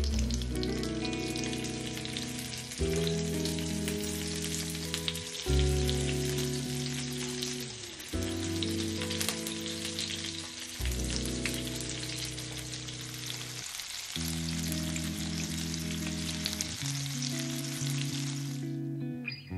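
Egg-battered fish fillets, zucchini slices and pork patties sizzling and crackling in hot oil in a frying pan, stopping shortly before the end. Background music with slow chord changes plays underneath.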